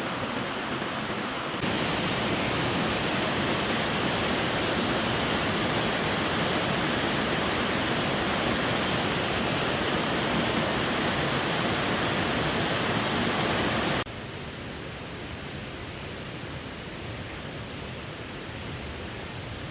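Waterfall's rushing water, a steady even roar that jumps louder suddenly about a second and a half in and drops back suddenly about 14 seconds in.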